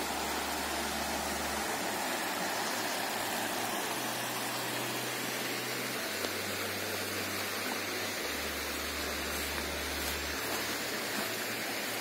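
Small rocky hill stream flowing, a steady rush of water.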